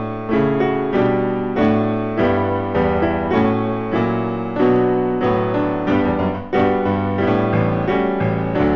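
Background piano music: a steady melody of evenly paced notes, each struck and fading, over held bass notes.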